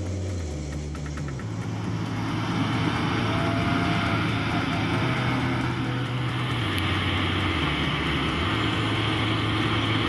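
Combine harvester running steadily, its machinery noise growing louder about two seconds in, with background music and a stepping bass line underneath.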